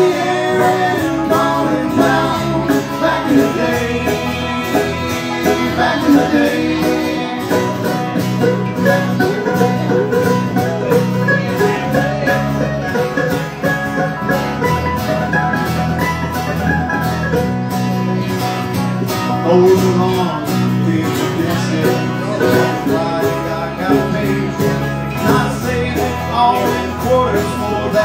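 Acoustic bluegrass band playing live: banjo, mandolin and acoustic guitars picked and strummed together in a steady, unbroken run of music.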